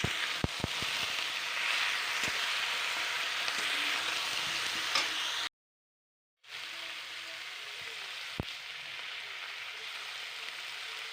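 Desi chicken pieces with potatoes and onion sizzling steadily as they fry in hot oil with turmeric and salt, with a few sharp knocks of stirring in the first two seconds. The sound cuts out abruptly about halfway, then resumes a little quieter, with one more knock.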